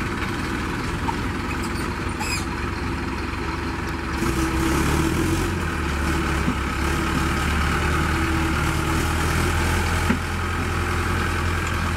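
Mahindra Arjun 555 DI tractor's four-cylinder diesel engine running under load as it hauls a loaded sugarcane trolley out of mud; the engine gets louder about four seconds in and holds there.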